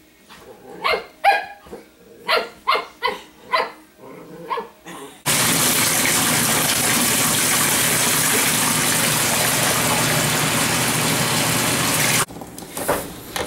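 An Italian Greyhound gives a string of about eight short barks, its teeth bared. Then, about five seconds in, loud steady running water in a bathtub takes over for about seven seconds and cuts off suddenly.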